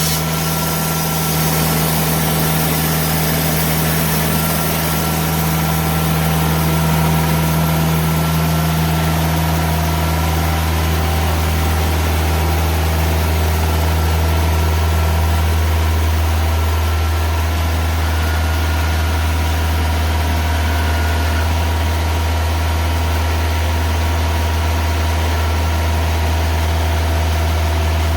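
TimberKing 2000 sawmill's engine running steadily with a deep, even hum.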